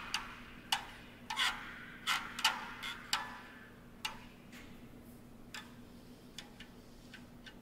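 Irregular sharp clicks and taps from a dancer's feet on a wooden board, thick and loud for the first three seconds or so, then sparser and fainter. A faint steady hum lies underneath.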